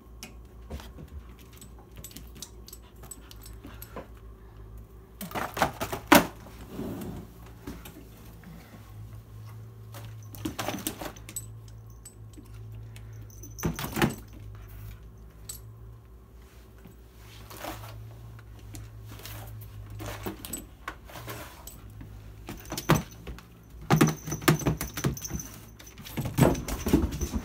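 A cat and a dog playing with a streamer wand toy: scattered knocks, scuffles and light metallic jingling, busiest near the end, over a low steady hum.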